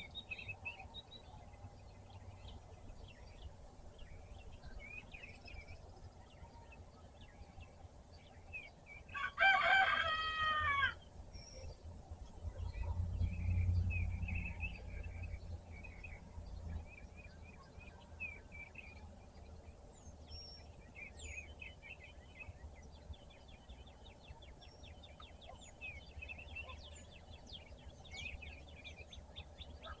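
A rooster crows once, one long call about a third of the way in. Small songbirds chirp and sing throughout, and a low rumble swells for a few seconds just after the crow.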